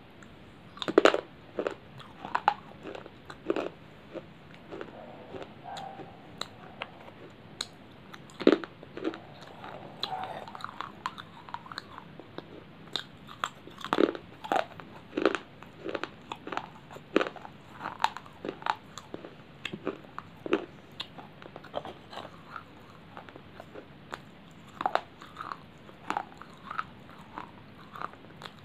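Biting and chewing of thin baked clay chips: a series of sharp, brittle crunches. The loudest bites come about a second in, around eight seconds and around fourteen seconds, with quieter chewing crunches between them.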